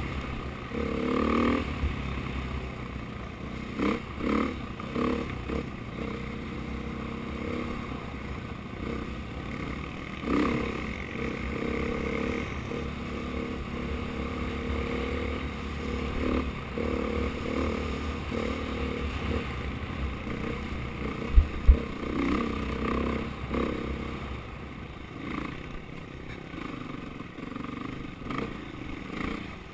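KTM dirt bike engine on the throttle, revs rising and falling, with clatter and knocks from the bike over rough ground. Two sharp thumps come about two-thirds of the way in.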